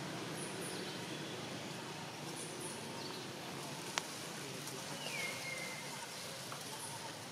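Steady outdoor background noise with faint high chirps repeating about once a second. A single sharp click comes about four seconds in, and a short falling whistled call about five seconds in.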